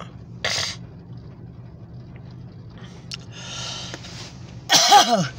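A person clears their throat loudly near the end, a short vocal burst that falls in pitch, with a brief breathy sound about half a second in. A steady low hum from inside the car runs underneath.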